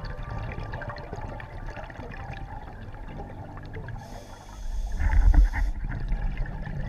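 Underwater sound picked up by a submerged camera: a constant low watery rumble, then a scuba diver's regulator breath, a hiss of inhalation about four seconds in followed by a loud, low rush of exhaled bubbles.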